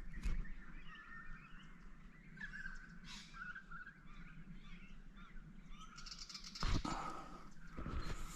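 Wild birds chirping and calling in short, warbling phrases. A thump about six and a half seconds in, and a lighter one near the end.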